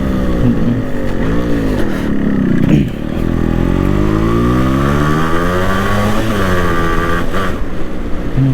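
Yamaha RX135's two-stroke single-cylinder engine under way, with the revs rising and falling. The revs drop sharply about three seconds in, as at a gear change, then climb steadily in a long pull and fall away again a little after six seconds as the throttle eases.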